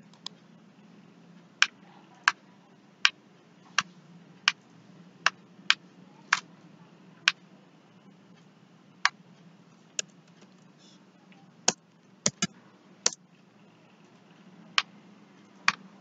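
Computer mouse and keyboard clicks: about eighteen sharp clicks at uneven spacing, some in quick pairs, over a low steady hum.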